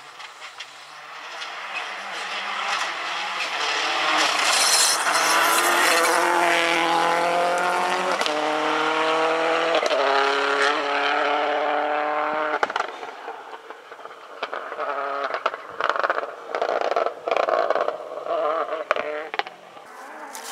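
Subaru Impreza WRC rally car's turbocharged flat-four engine accelerating hard, its pitch climbing through two quick upshifts, then dropping away about two-thirds through. It fades into short, uneven bursts on and off the throttle.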